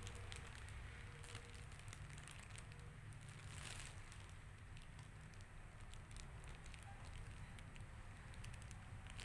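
Faint crackling of a plastic diaper-pack wrapper as fingers pick and scratch at it: many small irregular clicks, with a louder crinkle about three and a half seconds in.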